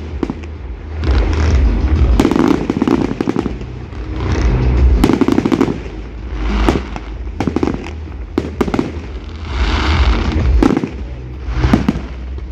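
Aerial fireworks shells bursting in quick succession: low booms and sharp bangs with a crackle of many small reports, the din swelling and easing every couple of seconds.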